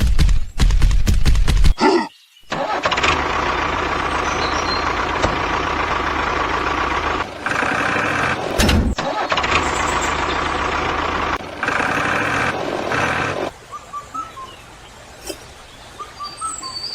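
A vehicle engine starting and then running steadily for about eleven seconds, with two brief dropouts. It then gives way to a much quieter stretch with faint chirps near the end.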